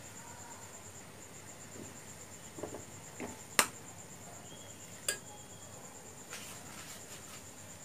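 Metal spoon knocking against a saucepan as tea bags are pressed and lifted from the boiling tea: a few soft knocks, then two sharp clinks about a second and a half apart. A steady high, rapidly pulsing tone runs underneath.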